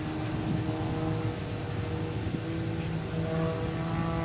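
Aerobatic airplane's engine droning steadily overhead, its drone gaining overtones near the end.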